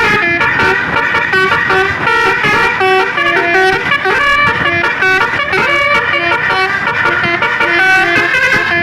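Tour bus's multi-tone 'telolet basuri' musical horn playing a fast melody of short, chord-like notes without a break.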